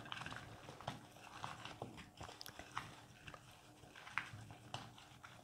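Hands tossing chopped raw vegetables (carrots, onion, bell peppers, tomatoes, potatoes) with salt and chili powder in a bowl: faint, irregular clicks and rustles of the pieces knocking together and against the bowl.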